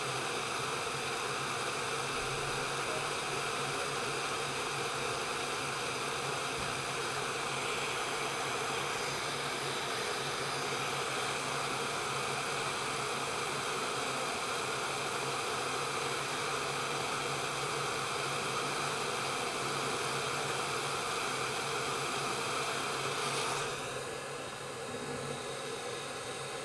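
Hot-air rework station blowing a steady hiss of hot air onto an iPhone 5s logic board, heating the U2 charging chip to desolder it. The hiss drops near the end as the nozzle is pulled away.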